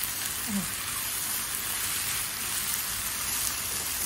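Chopped onions frying in ghee in a pan, a steady sizzle as they are stirred with a spatula.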